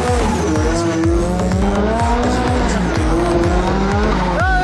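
Ford Sierra Cosworth rally car's turbocharged four-cylinder engine revving up and down through a hairpin, with tyres squealing as it slides, under a hip-hop music track.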